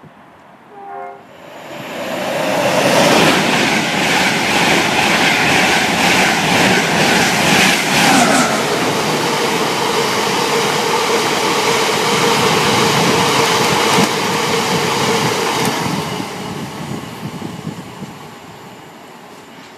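A short train horn blast about a second in. Then a freight train of covered hopper wagons passes close by, the wheels clattering loudly over the rail joints, and the noise fades away over the last few seconds.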